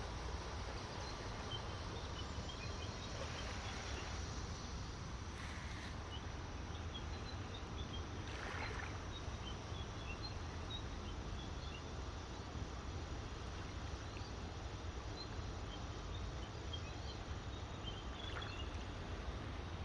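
Small waves lapping gently on a sandy shore, over a steady low rumble, with faint scattered high chirps throughout.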